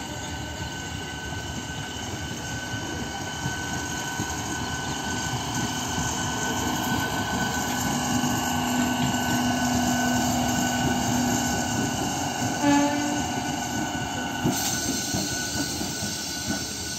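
Electric multiple-unit local train running past on the track, its wheels rumbling over the rails with a steady whine. The sound swells as it draws level and then eases off, and there is a short horn toot about thirteen seconds in.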